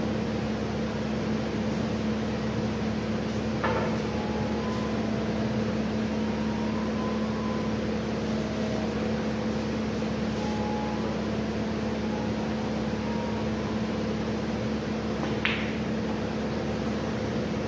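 Steady mechanical room hum with a constant low tone. Over it come two sharp clicks: one about four seconds in, and near the end a snooker cue striking the cue ball.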